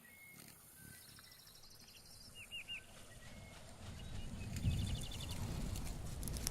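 Animal ambience with short high chirps and fast trills, like birds or insects, over a quiet background. A low rumble swells in about four seconds in.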